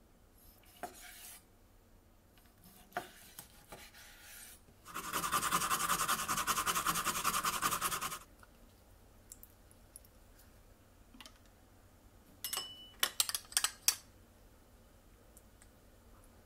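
A small piece of fresh ginger, skin on, being grated in fast, even scraping strokes for about three seconds. Later comes a quick cluster of sharp clinks.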